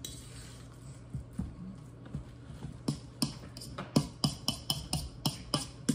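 A run of quick, sharp, irregular taps of a kitchen utensil against a bowl, starting about three seconds in at roughly three to four a second.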